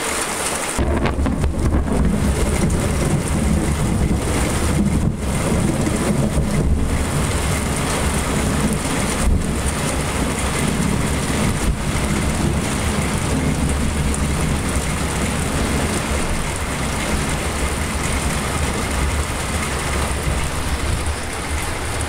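Heavy rain pouring down, with a long low rumble of thunder from a nearby lightning strike setting in about a second in and rolling on under the rain.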